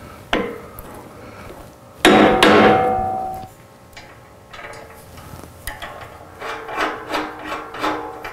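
A mallet strikes the steel cap bracket of a bumper's swing-out arm, driving the tight-fitting bracket into place. One loud blow about two seconds in rings on for about a second and a half, after a lighter knock at the start. Lighter metallic clicks and rattles follow as the bracket is bolted up.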